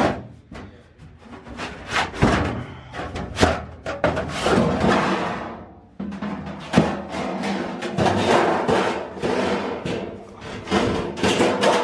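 Music with heavy percussion, with an abrupt cut about six seconds in.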